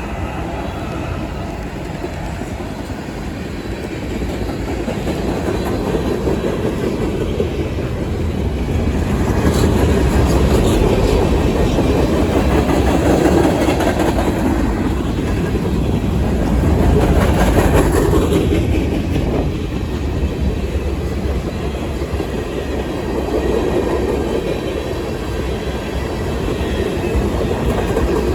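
A train's cars rolling past close by, wheels clacking over the rail joints in a steady rumble. It grows louder in the middle, with brief high squeals about ten and seventeen seconds in.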